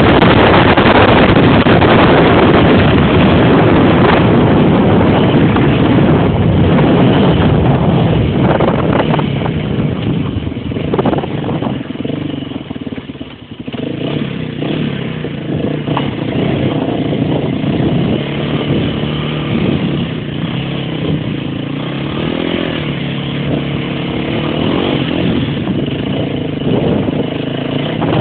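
Motorbike engine running with heavy wind noise on the microphone while riding at speed. About halfway through the rider slows and the wind drops away, leaving the engine note, which rises and falls with the throttle.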